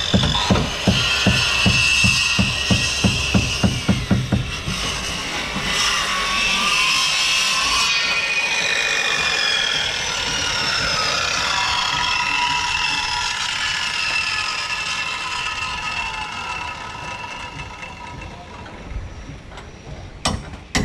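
Hand-held electric circular saw cutting through a thick wooden beam, its motor whine sliding up and down in pitch as the blade bites, with rhythmic thudding for the first four seconds or so. The sound dies away near the end, then come a few sharp knocks.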